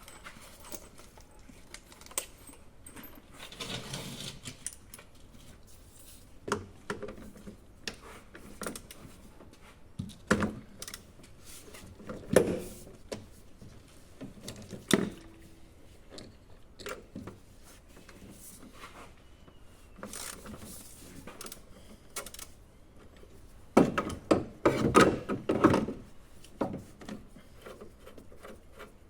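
Hand tools and metal engine parts clinking and knocking during work on an engine, with a few short scraping sounds. The loudest is a quick run of knocks near the end.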